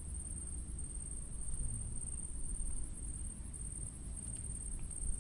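Insects keep up a steady, high-pitched drone with a fast pulsing texture, over a low, continuous rumble.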